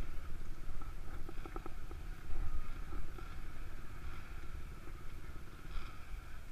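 Dirt bike engines idling together at a start line, a steady low rumble with a few light clicks about a second and a half in.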